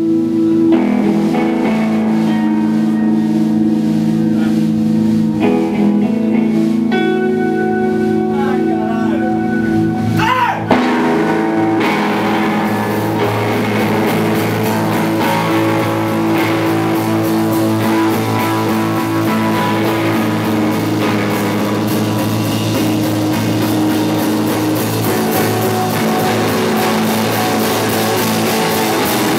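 Live rock band with electric guitars and drums playing an instrumental passage. Electric guitars ring out sustained chords and notes, with a sliding guitar note about a third of the way in. Then the full band with drums comes in and plays on at a steady loud level.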